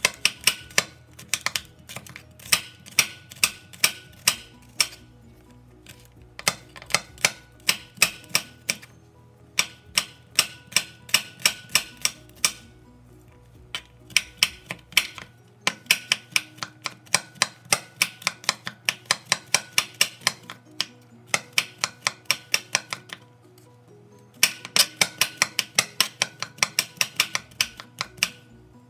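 Kitchen knife finely chopping garlic cloves on a hard cutting board: runs of quick, sharp taps, about five a second, with short pauses between the runs.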